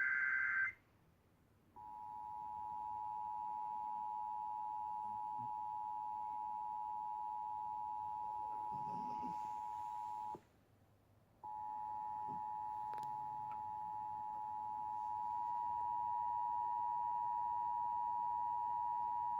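The tail of an Emergency Alert System digital header burst (a short data warble), a second of silence, then the EAS two-tone attention signal (853 and 960 Hz together) sounding steadily, with a drop-out of about a second midway before it resumes.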